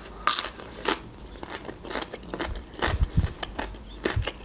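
Close-miked chewing of fresh cucumber: a run of crisp crunches and wet mouth clicks, with a low thump about three seconds in.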